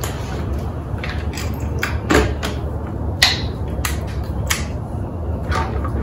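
Knocks and clicks of a Velotric e-bike battery pack being handled and slid into the frame's down tube, about nine in all, with the loudest about three seconds in. A steady low hum runs underneath.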